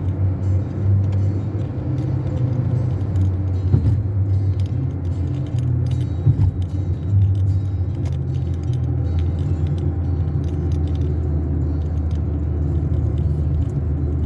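Chevrolet Onix heard from inside the cabin while driving: a steady low engine and road rumble, with light rattles and clicks from the car's interior.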